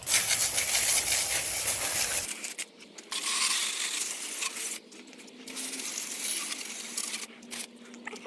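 A low-pressure garden hose spraying water onto a muddy mountain bike, a steady hiss of water spattering on the frame and drivetrain. The spray breaks off briefly three times.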